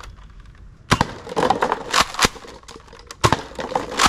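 Nerf Mega Magnus foam-dart blaster being primed and fired several times, a sharp crack or clack with each shot. Light cups clatter as they are knocked off the table.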